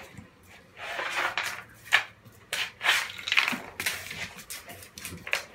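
A young mastiff rummaging with its toys on a tiled floor: irregular scuffling and rustling bursts with a few sharp knocks and clatters.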